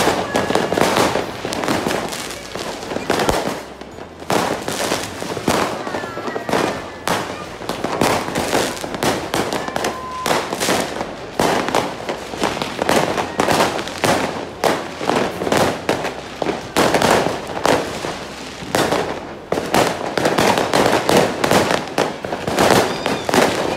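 Dense New Year fireworks and firecrackers going off all at once, with overlapping bangs and crackling that hardly pause.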